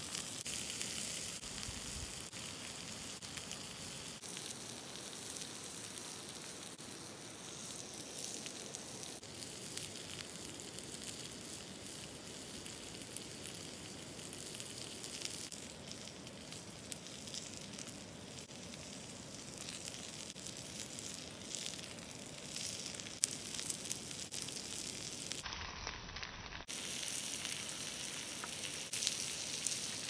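Liver wrapped in caul fat sizzling on a hot cooking stone: a steady frying hiss full of small pops and spits as the fat renders. It breaks off briefly near the end.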